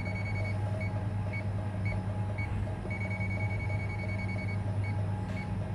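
A clamp meter's non-contact voltage detector beeps as it is held along a live power cord, tracing the live conductor to locate a break in the wire. The high tone sounds steadily at first, breaks into short beeps about twice a second, holds steady again for a second or so midway, then returns to short beeps. A steady low hum runs underneath.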